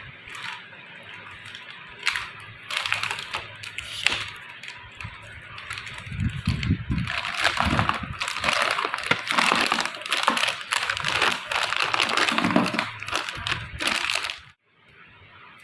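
Hershey's Kisses packaging being handled: plastic wrapping and foil wrappers crinkling and crackling with many sharp snaps. It stops suddenly near the end.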